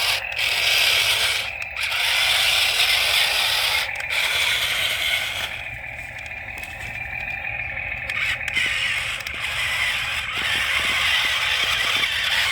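Toy RC excavator's small electric motors and plastic gearboxes whirring and grinding, cutting out briefly a few times and running quieter for a few seconds in the middle.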